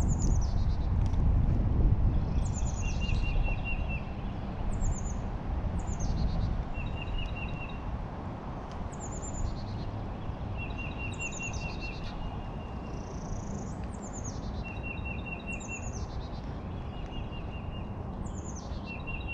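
A songbird sings the same short phrase over and over, about every two seconds: a quick run of falling high notes, then a short trill. Under it is a steady low rumbling noise.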